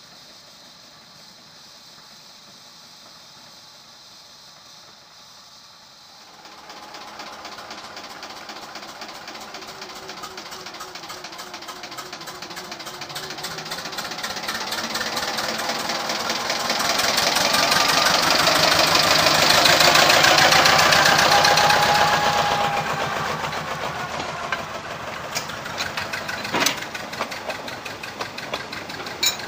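Small narrow-gauge diesel locomotive approaching and passing close with its engine chugging, growing louder from about six seconds in to a peak and then fading. Near the end the loaded log wagons follow with clicking wheels over the rail joints.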